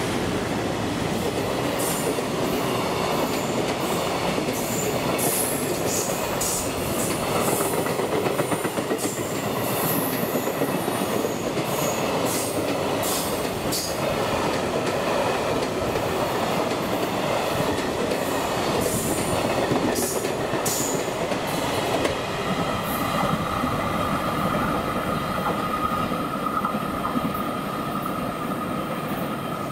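Container wagons of a long freight train rolling past at speed: a dense rumble of wheels on rail with many sharp clicks and squeaks. About two thirds of the way through the noise thins as the last wagons draw away, and a steady high-pitched whine sets in.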